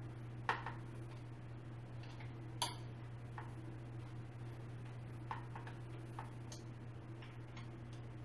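Light, irregular clicks and taps of small metal hardware and tools being handled while a chair is put together, two sharper ones near the start and a few fainter ones later, over a steady low hum.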